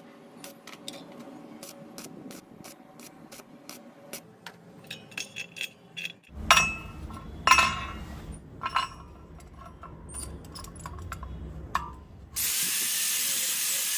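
Light metal clicks at a steady rate of about two or three a second. A low hum then starts, with three loud metal clanks over it. Near the end a loud, steady hiss comes in.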